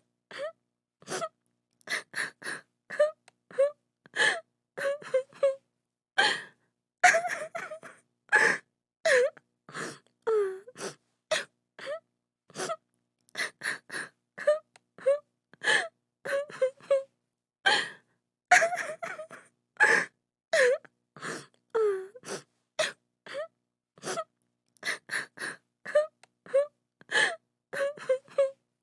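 A woman crying: short gasping sobs and wavering wailing cries, one after another with brief silent gaps between.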